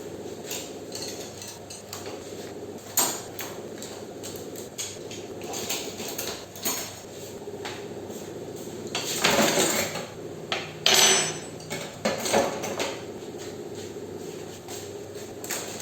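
Kitchen dishes, pots and utensils being handled and set down: irregular knocks and clinks, with louder clatters about nine and eleven seconds in.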